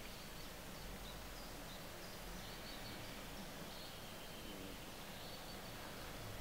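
Faint steady outdoor background hiss with a low rumble, and a few faint, thin high chirps scattered through it.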